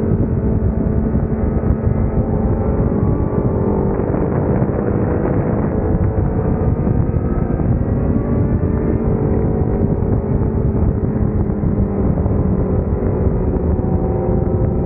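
Honda CBR1000RR's inline-four engine running at cruising revs, its pitch easing gently up and down with the throttle, under steady wind rush on the bike-mounted microphone.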